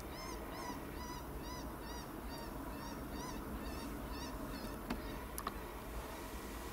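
Electronic predator caller playing a string of short, high calls, each rising and falling in pitch, about three a second, used to call in a bobcat. The calls stop about five seconds in, followed by a few faint clicks.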